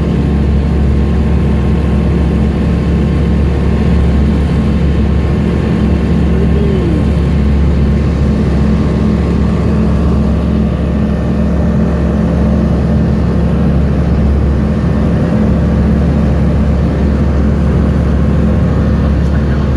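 Piston engine of a Tecnam P96 light aircraft, heard from inside the cockpit, running steadily without a break.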